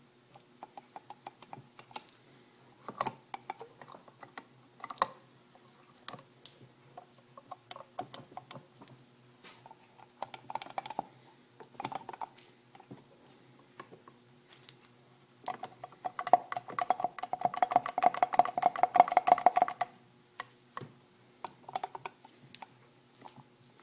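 Scattered metallic clicks and knocks from parts of a late-1960s 6 hp Evinrude outboard being handled during teardown, with a burst of rapid clicking from about 16 to 20 seconds in, over a faint steady hum.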